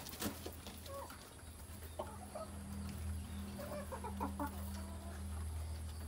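Chickens clucking: short, scattered clucks from a flock of hens and a rooster, coming more often from about two seconds in, over a low steady hum.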